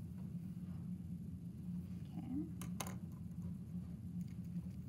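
Quiet steady low hum, with a couple of light clicks nearly three seconds in as felt-tip pens are put down and picked up.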